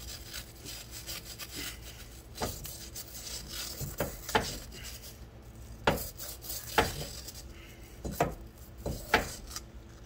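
Hand wire brush scrubbing rusty metal: a run of fine scratching broken by sharper scraping strokes at irregular intervals of about a second, the loudest near the end.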